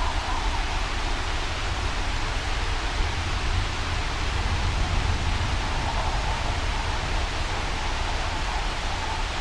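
Steady wind-and-rain storm ambience: an even rushing hiss with a deep, constant low rumble underneath and no separate thunderclaps or drops standing out.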